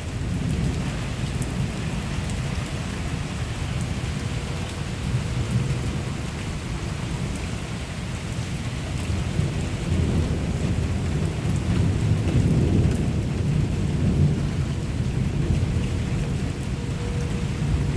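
Thunderstorm: steady rain with a low rolling rumble of thunder that grows louder about halfway through.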